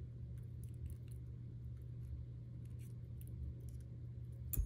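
Faint small clicks of metal chain links and jewelry pliers as an open link is squeezed shut, with one sharper click near the end, over a steady low hum.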